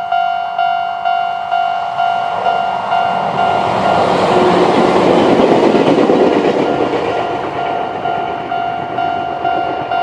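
Japanese level-crossing alarm ringing its old-type standard tone, a pitched clang repeated about twice a second. A Chichibu Railway 7800 series train passes through the crossing over it, its rushing wheel-and-rail noise swelling to a peak mid-way and then fading.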